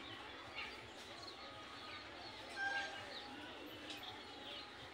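Small birds chirping in the background: short, quick downward chirps scattered throughout, with one brief clear whistled note about two and a half seconds in.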